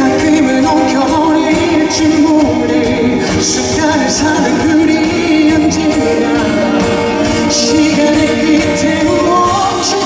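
A male singer singing live into a microphone over pop music accompaniment, the voice wavering and sustained over a dense, steady backing.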